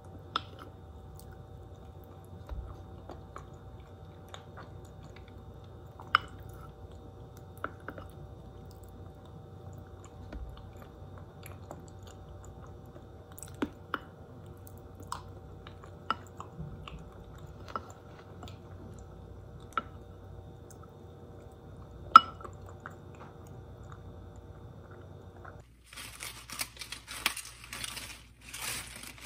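Eating from a glass bowl: chewing, with a plastic spoon clicking against the glass every second or two over a steady low hum. Near the end, crisp lettuce leaves crinkle as they are handled at a sink.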